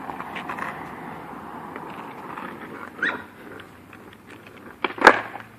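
A dog barking twice: a short, rising yelp about three seconds in, then a louder, sharp bark near the end, over a steady hiss of background noise.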